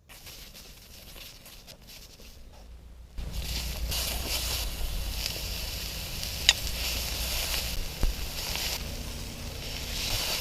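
Fried rice sizzling as it is stir-fried on a wood-fired stone griddle, a steady hiss that grows louder about three seconds in. A sharp click comes about midway, and a thump later.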